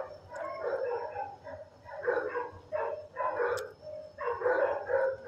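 Dogs barking in a shelter kennel block, short bursts of barks about once a second.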